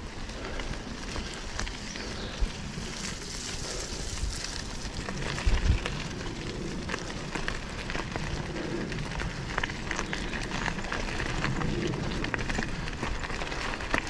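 Mountain bike riding over a rough trail: the tyres crackle and crunch steadily over the surface and the bike rattles, with a couple of low thumps about five and a half seconds in.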